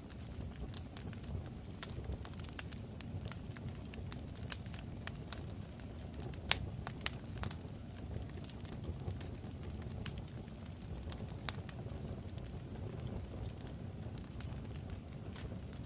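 A fire crackling: a steady low rumble with irregular sharp pops and snaps, a few louder snaps around six to seven seconds in.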